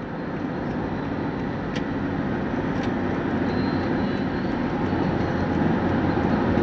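Road and engine noise heard inside a moving car's cabin: a steady rumble that grows gradually louder.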